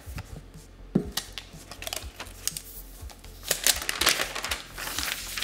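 Unboxing sounds: a cardboard box lid lifted off with light taps and scrapes, a soft knock about a second in, then a paper wrap rustling and crinkling as it is pulled off a laptop near the end.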